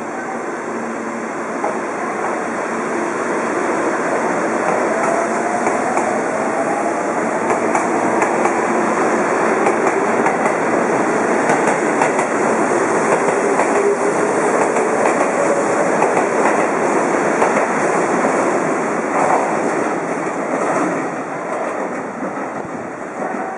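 Seibu 20000-series electric train pulling out and accelerating past, its traction motors whining upward in pitch over the first several seconds, with wheels clattering over rail joints. The sound builds to its loudest as the cars pass and fades over the last few seconds as the train draws away.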